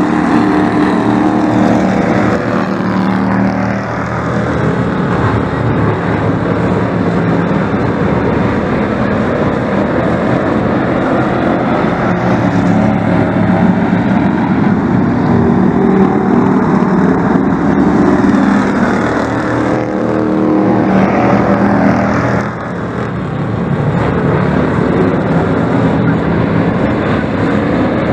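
Engines of several speedway race trucks running hard as the pack laps a dirt oval: a loud, continuous engine drone that swells and fades as the trucks pass, with a short dip about twenty-two seconds in.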